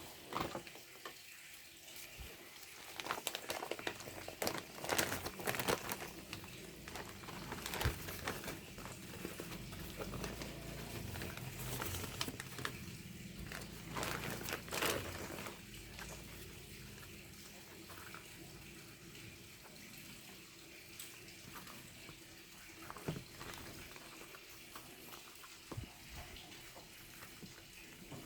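Packaging being handled and opened: irregular crinkling and rustling with many small clicks, busiest in the first half, then quieter handling with a few isolated taps.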